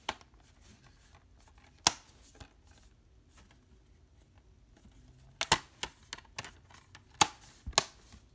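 Metal Blu-ray steelbook case being handled: a scatter of sharp clicks and taps as it is turned over in the hands, most of them near the end.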